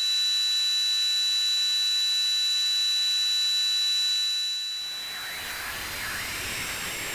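A recreation of one person's tinnitus: a high hiss with several steady high-pitched ringing tones, the brightest near 4 kHz. About five seconds in, the tones fade and it turns into a wider, wavering rushing hiss.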